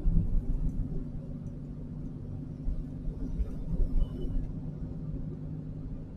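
Steady low engine hum and road rumble of a car being driven at an even speed, heard from inside the cabin.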